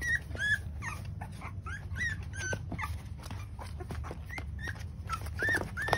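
Three-week-old micro American bully puppies whimpering and squeaking: about a dozen short, high-pitched cries, some bending up and down in pitch.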